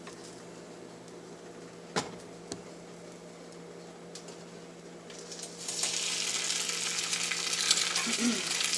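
A flipped slice of bread with an egg in its centre frying in a skillet: a faint sizzle with two sharp clicks about two seconds in, then the sizzling grows much louder past the middle.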